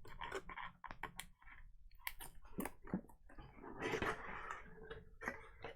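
Faint rustling and clicking of a cardboard box and its packaging being handled and opened, with a denser crinkly rustle about four seconds in.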